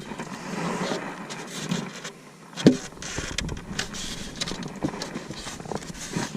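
Low rustling and handling noise with scattered clicks, and one sharp knock a little under three seconds in.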